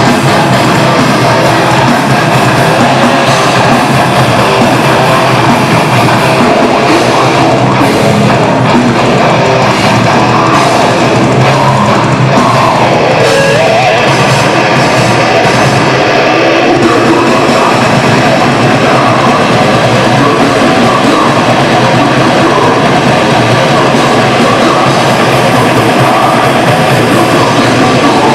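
Heavy metal band playing live: distorted electric guitars and a drum kit, loud and dense without a break.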